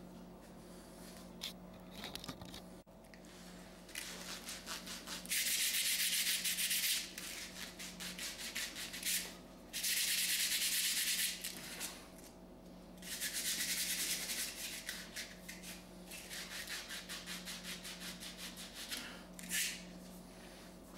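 Fiberglass rod blank being hand-sanded round, with rapid scratchy back-and-forth strokes in spells of one to two seconds and short pauses between them.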